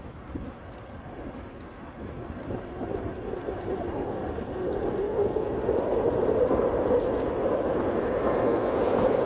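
A car approaching on the road, its tyre and engine noise growing steadily louder until it is close.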